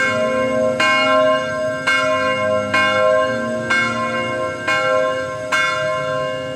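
Church bell tolling, struck about once a second, each stroke ringing on into the next.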